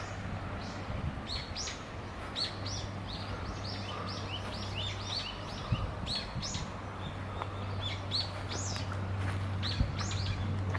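Small birds chirping, many short high chirps in quick succession, over a steady low hum.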